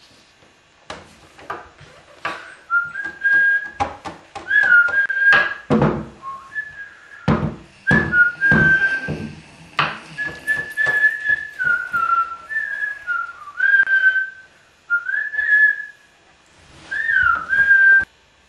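A boy whistling a tune through pursed lips in short phrases with brief pauses, the notes stepping up and down. Scattered knocks and taps run through the first half, and the whistling stops abruptly near the end.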